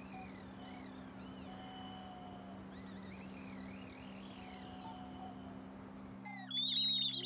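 Hand-turned wooden bird whistles sound sparse, sliding bird-like calls over a steady low hum. About six seconds in, a louder, dense chorus of whistled chirps and trills starts.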